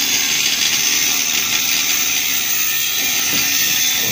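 Angle grinder with a cut-off disc running under load, cutting through a steel trailer landing-gear leg with a steady, high grinding hiss.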